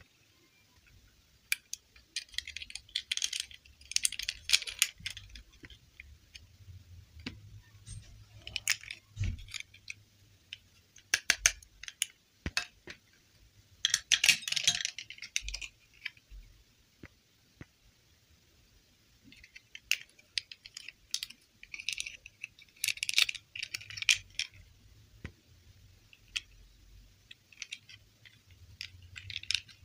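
Small plastic dolls and their clip-on dresses being handled in a bowl: light clicks and rattles of plastic knocking together, coming in several bursts with quiet gaps between.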